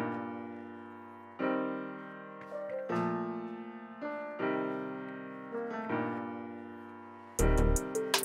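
Background music: piano chords struck about every second and a half and left to ring down, with a drum beat coming in near the end.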